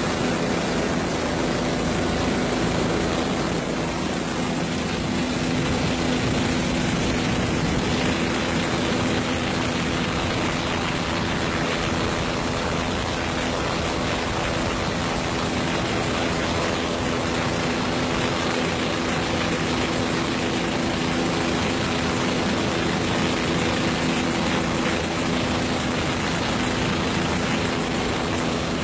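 Steady drone of an aircraft engine with rushing air, carrying a few steady hum tones that do not change.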